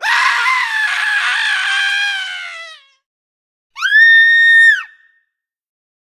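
Two human screams, one after the other. The first is long and rough, lasting nearly three seconds and trailing off lower in pitch. After a short gap comes a shorter, very high, clear scream of about a second that swoops up, holds and drops.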